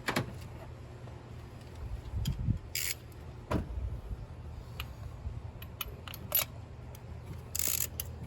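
Metal hand tools and parts clinking and scraping in an engine bay while spark plugs are being removed: scattered sharp clicks and two brief rattling scrapes, about three seconds in and near the end, over a low steady rumble.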